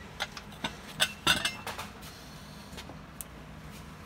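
Light metallic clinks and taps of a tire bar and tools knocking against a truck wheel's rim on a tire changer: a quick cluster in the first two seconds, then one more tick about three seconds in.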